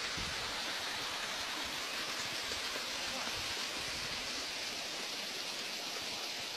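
Waterfall rushing with a steady, even hiss of falling water.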